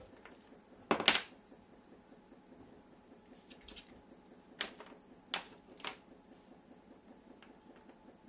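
A small bone-shaped dog chew clattering and knocking on a wooden floor as a Shiba Inu puppy noses and paws it. There is a loud rattling clatter about a second in, then a few lighter single clicks and knocks.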